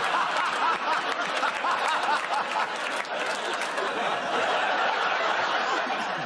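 Studio audience laughing, a dense crowd laugh that holds steady throughout.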